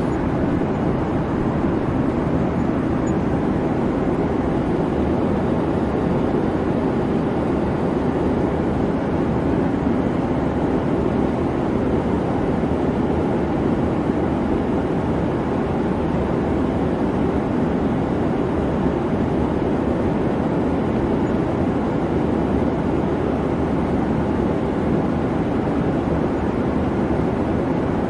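Steady noise of a jet airliner in flight: an even, unchanging drone with most of its weight in the low end.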